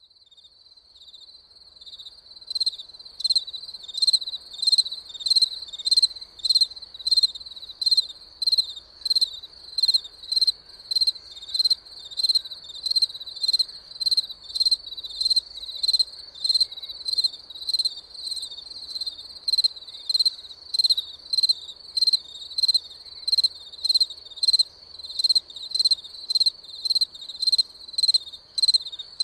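Crickets chirping in a steady rhythm of about two high chirps a second over a continuous high trill. The sound fades in over the first couple of seconds.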